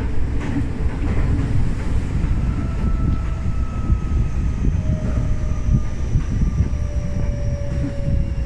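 Inside a Tokyo Metro 05 series subway train: a steady running rumble, and from about two seconds in a thin whine of several tones that slowly falls in pitch as the train slows on the approach to a station.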